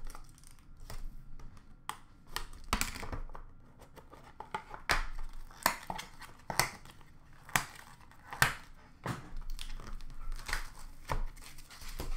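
Plastic shrink-wrap tearing and crinkling as a white Leaf Expo Ink hockey card box is unwrapped and its lid lifted off: a string of short scrapes and knocks of cardboard and plastic, about one a second.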